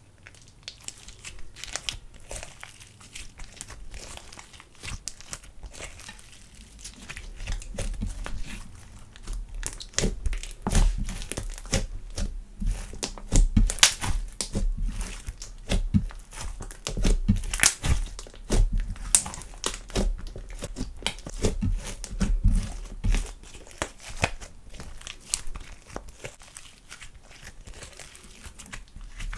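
Thick glitter slime being stretched, folded and squeezed by hand, giving a steady run of crackling, popping clicks. The crackles grow louder in the middle, with low thuds as the slime is pressed down on the counter with the fists, then ease off near the end.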